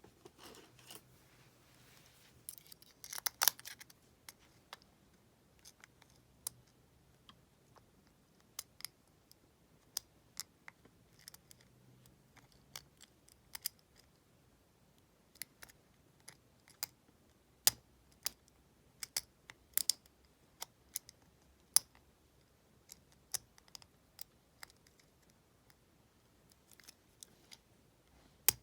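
Metal lock pick clicking and ticking against the pins inside an IKonic double-cylinder deadbolt's cylinder. The clicks are sharp and irregular, about one or two a second, with a louder cluster about three seconds in.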